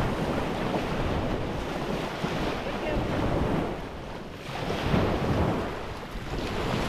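Small waves breaking and washing up a shingle beach, with wind buffeting the microphone. The surf swells and ebbs, loudest about five seconds in.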